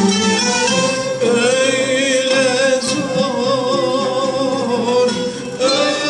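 Turkish classical music ensemble of violins, ouds and kanun accompanying a male solo singer in makam Hicaz. About a second in, a long note is held with a wavering vibrato, dipping briefly near the end before the ensemble carries on.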